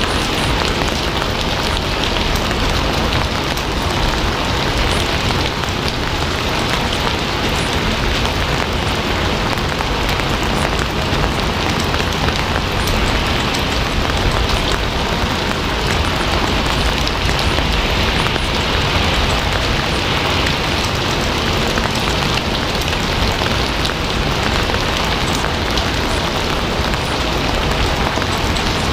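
Steady rain falling, an even hiss of many drops with a low rumble underneath, unchanging throughout.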